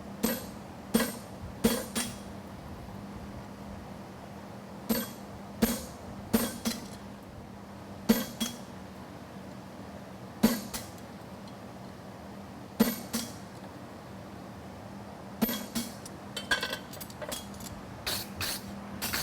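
Blacksmith's hammer striking a hot steel horseshoe bar on the anvil: single and paired ringing blows spaced a second or more apart, then a run of lighter, quicker taps near the end. A steady low hum runs underneath.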